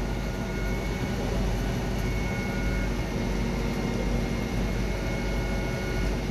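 Fire appliance's diesel engine and pump running steadily at the fireground: a constant low rumble with a faint steady whine over it.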